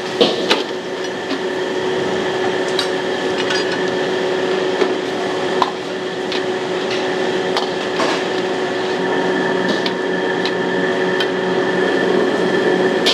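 Steady rushing hum of a wok station, with scattered sharp metal knocks of a spatula against the wok.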